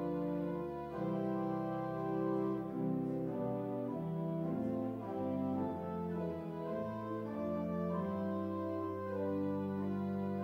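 Slow instrumental music of sustained organ chords, changing every second or so.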